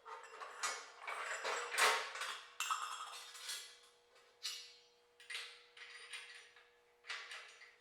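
Steel sawmill track parts and bolts being handled and fitted together: a series of metallic clinks and knocks, about one a second, some with a short ring.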